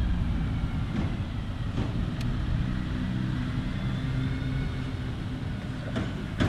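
Steady low mechanical rumble, with a few faint clicks.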